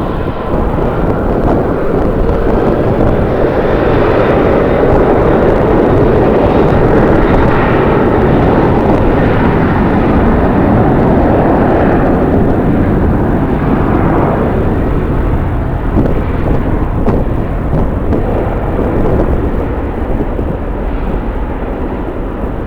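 Jet airliner passing, its engine noise swelling over the first few seconds and fading away after about the middle, with strong wind buffeting the microphone throughout.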